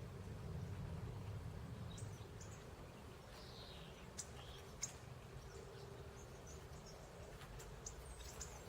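Faint wild birds calling: scattered short, high chirps and clicks, with one brief falling call about three and a half seconds in, over a low background rumble.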